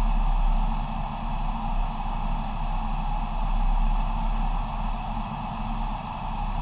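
Steady airliner flight-deck noise in flight: a constant rush of air with a low rumble underneath.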